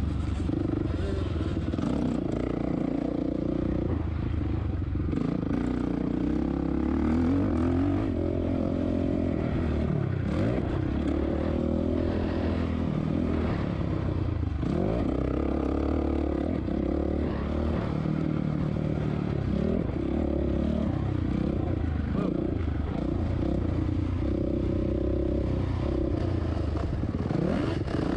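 A 2007 Suzuki RM-Z450 motocross bike's single-cylinder four-stroke engine, heard onboard while racing, revving up and down as the throttle is worked, with chassis clatter and wind.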